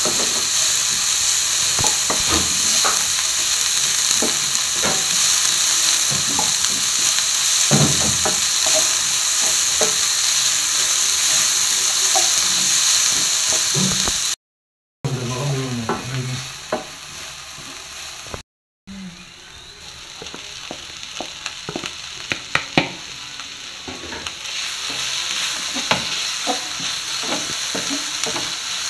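Beef, sliced onions and capsicum sizzling as they fry in a non-stick wok, with frequent clicks and scrapes of a wooden spatula stirring them. The sound cuts out twice briefly about halfway through, then comes back quieter and builds up again.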